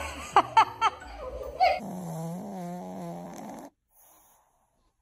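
Three short, sharp squeaky sounds at the start, then a sleeping pug snoring, a wavering pitched snore lasting about two seconds that stops well before the end.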